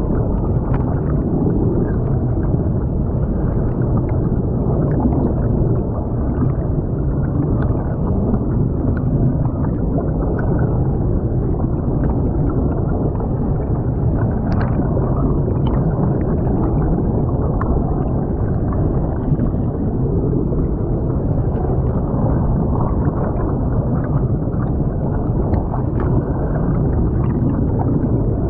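Creek water rushing and gurgling, heard muffled through a submerged camera, with air bubbles streaming past; a steady dull wash with faint ticks and no high sounds.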